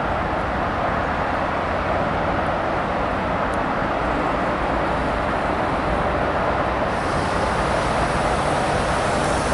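Steady rumble of distant road traffic with wind buffeting the microphone, growing a little louder and brighter about seven seconds in.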